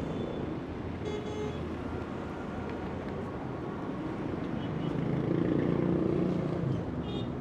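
Busy city street traffic: a steady rumble of passing vehicles, swelling louder about five seconds in as a heavier engine goes by.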